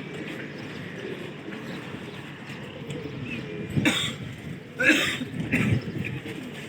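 A person coughing three times in the second half, short sharp coughs over steady outdoor background noise.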